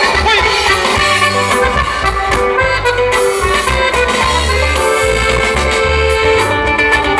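Norteño music with no singing: an accordion plays the melody over a stepping bass line and a steady beat.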